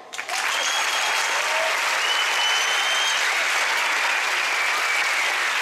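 Theatre audience applauding, the clapping starting suddenly just after the drumming stops, with a few long steady high tones over it.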